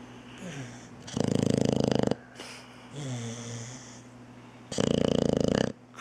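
Boxer puppy snoring loudly in its sleep: two long, fluttering snores about three and a half seconds apart, with softer breathing sounds between.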